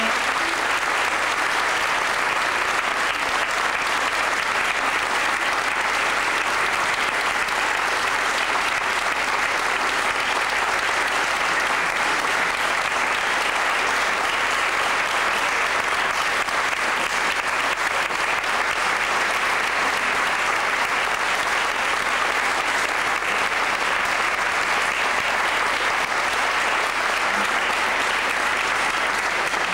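Audience applauding: a steady, unbroken round of clapping.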